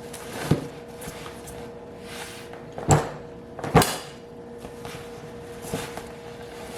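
Towels being stuffed into a plastic dry bag: rustling of the bag with a few sharp knocks and bumps, the loudest two about three and four seconds in.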